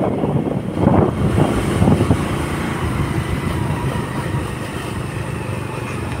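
Motorcycle riding along a concrete road: the engine running steadily under road and wind noise.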